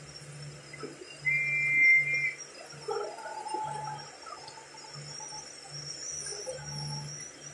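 AM radio reception through a clock radio's small speaker: a steady hiss with a low buzz that keeps cutting in and out. A steady high tone sounds for about a second, starting about a second in.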